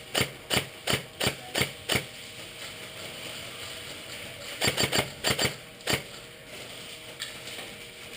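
Airsoft guns firing semi-automatic: a string of about six sharp cracks, roughly three a second, then a pause and another quick string of about six shots around five seconds in.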